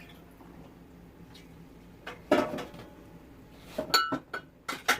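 Dishes knocking and clinking together in a porcelain sink while being washed by hand. The sounds come as scattered knocks: a sharp one about two seconds in, a ringing clink about four seconds in, and a couple more near the end.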